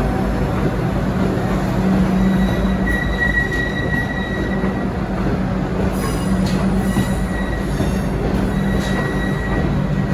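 V/Line locomotive-hauled passenger train rolling along the track with a steady rumble. A thin, high wheel squeal comes and goes, and a few sharp clicks from the wheels over rail joints come in the second half.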